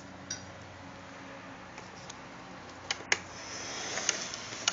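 Rustling in loose wood-shavings bedding that swells about three seconds in, with a few sharp clicks, two close together around three seconds in and a louder one near the end.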